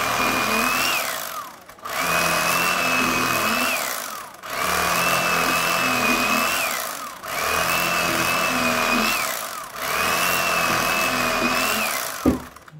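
Electric slicer's motor slicing meat, run in five bursts of about two and a half seconds with short pauses, each burst ending in a falling whine as the motor is let go and spins down. A sharp click near the end.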